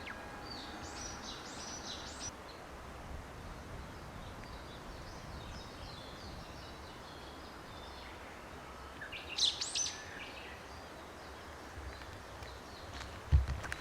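Steady outdoor background noise with birds calling: a run of short rising chirps in the first two seconds, fainter chirping after that, and a louder burst of calls about nine and a half seconds in. A short low thump comes near the end.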